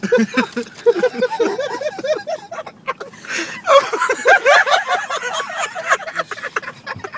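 A flock of seagulls calling around a van, many short squawks overlapping and thickest about halfway through, with people laughing.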